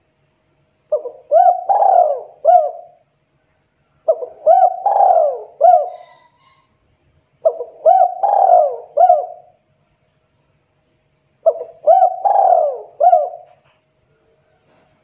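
Spotted dove (tekukur) singing its cooing song: four phrases a few seconds apart, each a short first note followed by several rolling coos.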